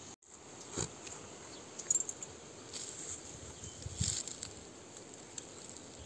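Goat grazing: grass tearing and rustling as it crops mouthfuls, in a few short crisp crackles about a second apart.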